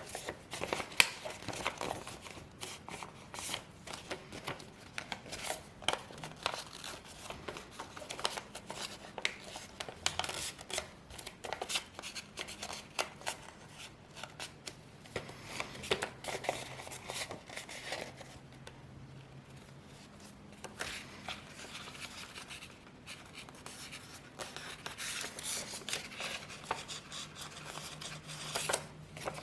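Sheet of A4 paper being folded and creased by hand: irregular crisp crackles and snaps of the paper, quieter for a few seconds past the middle.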